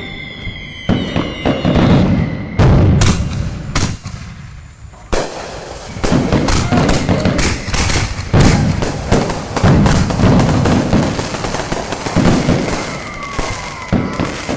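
Fireworks display going off: a rapid, irregular series of bangs and crackling from bursting aerial shells, with a brief lull a few seconds in and a falling whistle near the end.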